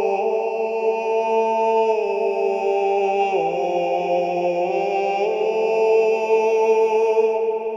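Voices chanting long held notes in a church-ritual style over a steady low drone. The pitch steps to new notes every second or two.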